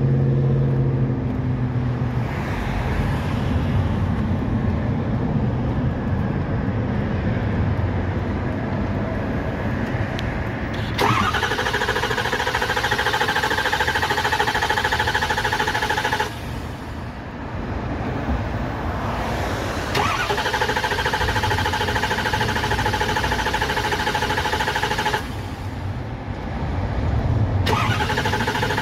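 A steady low rumble, then a car's starter motor cranking the engine in bursts of about five seconds: twice, then a third time starting near the end, each set off with a click. The engine does not catch: it has run out of fuel and the fuel system is being primed.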